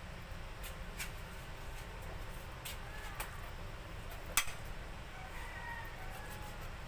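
Light clicks and taps from hands working a raw tuna fillet on a cutting board while its bones are picked out, with one sharper knock about four seconds in, over a low steady hum.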